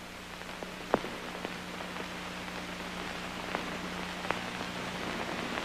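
Steady hiss and low hum with a few scattered clicks and pops, one sharper pop about a second in: the surface noise of an old film soundtrack with no narration over it.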